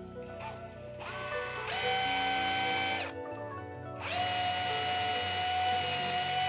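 Power drill running with a thin twist bit boring into the end of a wooden dowel: the motor whines up about a second in, stops near three seconds, then starts again a second later and runs on steadily. Background music plays underneath.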